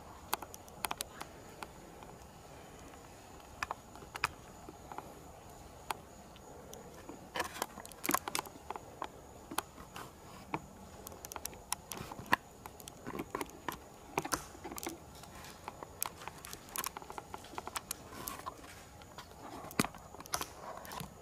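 Scattered light clicks and crackles of footsteps on a debris-strewn floor, irregular and quiet, with a few sharper knocks about eight and twelve seconds in. A faint steady high-pitched tone runs underneath.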